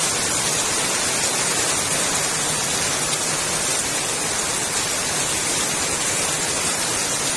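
Heavy rain pouring down steadily, a dense, even hiss with no breaks.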